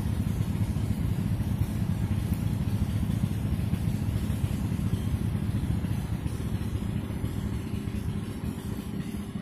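A steady low engine drone, easing slightly near the end, with a faint higher hum joining it about two thirds of the way in.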